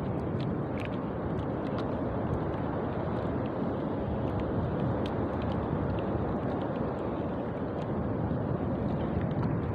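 Steady rushing wind noise on the microphone over open sea, with small ticks and splashes of water against a small wooden outrigger boat.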